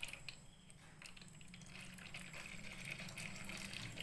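Water poured from a steel cup into the fill slot of a Click and Grow smart garden's reservoir, a faint trickling splash that grows a little louder. A light knock near the start.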